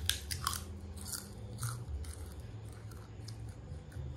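Crunching bites and chewing of a crispy cracker (krupuk): a quick run of sharp crunches in the first two seconds, then a few sparser ones, over a low steady hum.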